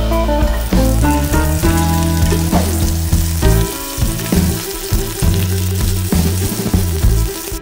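Garlic, green chillies and chopped onion sizzling in hot oil in a non-stick wok, stirred with a spatula, over background music.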